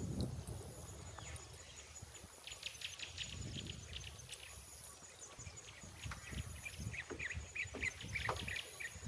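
Wild birds chirping, with a quick run of short calls in the last few seconds, over low outdoor background noise. A thin high tone comes and goes.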